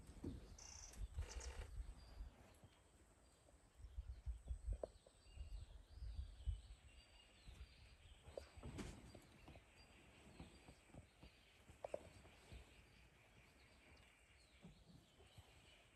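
Quiet dry-forest ambience with faint, scattered bird chirps. Low rumbles and thuds on the microphone come and go in the first half.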